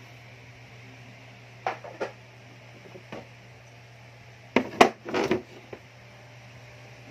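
Plastic dog bowls knocking and scraping on a tile floor as small dogs eat from them: a few single clicks, then a louder clatter about five seconds in.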